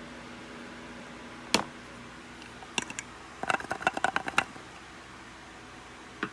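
Light clicks and taps of a stainless steel bowl against a glass jar as the last of the ground spice mix is knocked out of it: a single click, a pair, then a quick run of clicks about three and a half seconds in, and one more near the end.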